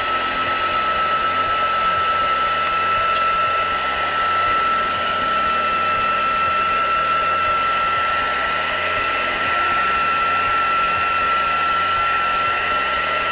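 Handheld craft heat tool (embossing heat gun) running steadily to heat-set alcohol inks: a steady whine from its fan over the rush of hot air.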